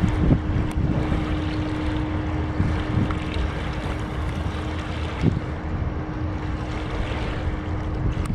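Inland motor cargo ship's engine running with a steady hum as the barge passes, under heavy wind noise buffeting the microphone.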